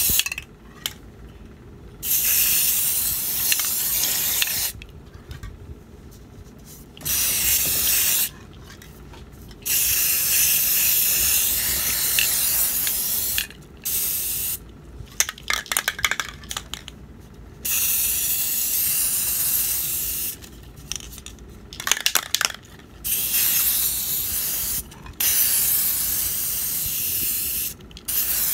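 Aerosol spray paint can spraying onto water in repeated hissing bursts of one to four seconds each. Short rattly clicks come in between around the middle.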